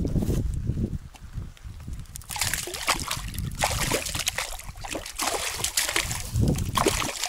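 A zander (pike-perch) thrashing in shallow water at the bank, splashing irregularly from about two seconds in until near the end.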